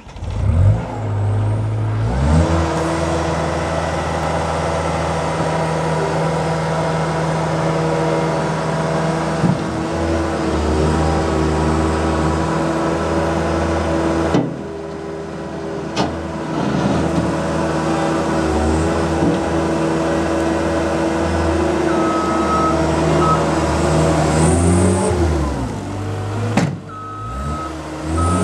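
Diesel engine of a Caterpillar 226B skid steer loader running under load, revving up about two seconds in and changing speed as the machine drives and turns. Its reversing alarm beeps twice near the end.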